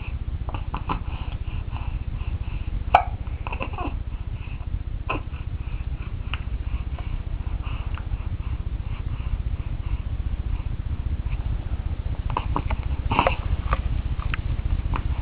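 A one-month-old baby hiccupping: a few short, sharp hiccups, the loudest about 3 seconds in and another cluster near the end, with soft little baby noises between them over a steady low hum.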